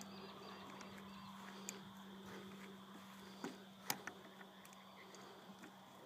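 Faint clicks and taps of hands handling a model aircraft's small glow engine and propeller, a few isolated ones, the sharpest about four seconds in. A faint steady low hum lies beneath.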